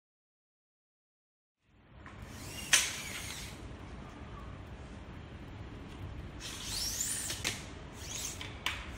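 Silence for a little under two seconds, then quiet handling of a steel tape measure and pencil on a stack of timber floorboards: one sharp click a little under three seconds in, a short sliding whir of the tape blade around seven seconds, and a few lighter clicks after it.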